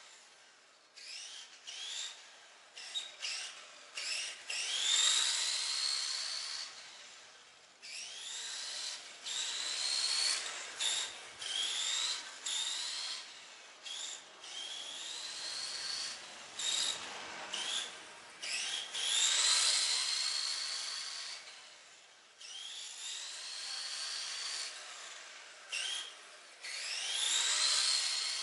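Tamiya TT-01 radio-controlled car with a Tamiya Light-Tune brushed electric motor, whining as it drives. Each burst of throttle gives a rising whine that cuts off, over and over, louder as the car passes close.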